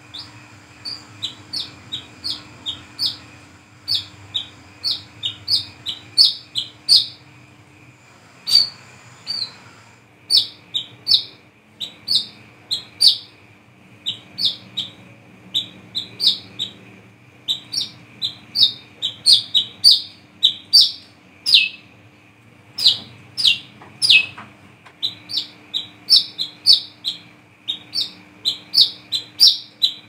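Brown-throated sunbird (kolibri kelapa) singing a fast, unbroken string of short, sharp, high chirps, about two to three a second, some much louder than others.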